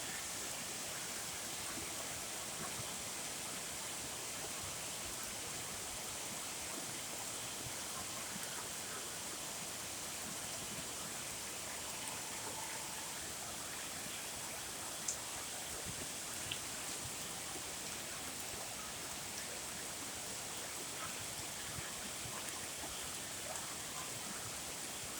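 Steady rain falling from a storm, an even hiss, with a couple of sharp taps about two-thirds of the way through.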